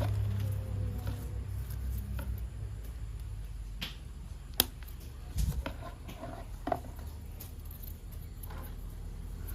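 Scattered light clicks and taps of plastic toy train parts being handled, over a low steady hum.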